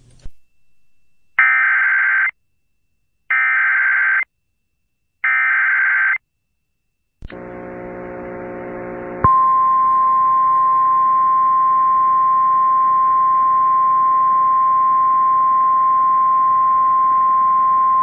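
Emergency Alert System activation relayed over FM radio. First come three roughly one-second bursts of the SAME digital header data. Then a hiss with a low hum comes in, and about nine seconds in a single long, steady attention tone starts.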